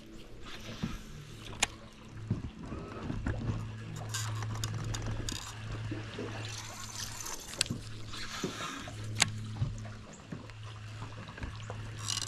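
Bow-mounted electric trolling motor humming steadily, cutting out briefly a few times, with scattered clicks from a baitcasting reel being cranked and a quick run of ticking near the end.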